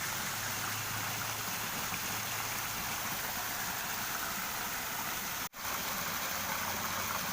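Water gushing steadily from an outlet into a ditch, a constant rushing noise. It cuts out completely for a split second about five and a half seconds in, then resumes.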